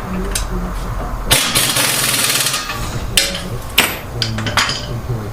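Hand and power tools working on a car's strut assembly: a loud rattling burst of rapid impacts lasting over a second, then three short metallic knocks.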